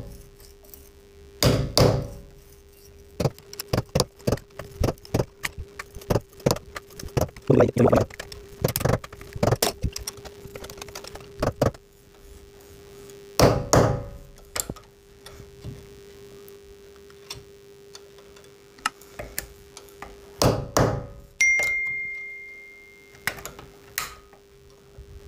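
Hammer tapping the back of a flat-blade screwdriver held in pliers, chiselling a hole into a plastered brick wall: short bursts of light blows, with metal clinking and scraping as the screwdriver is twisted in the hole between bursts.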